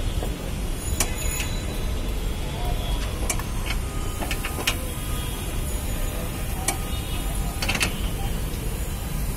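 Scattered small clicks and taps from hands fitting the wiring connector and bracket of a car horn, a cluster of them about halfway through and another near the end, over a steady low vehicle rumble. The horn itself does not sound.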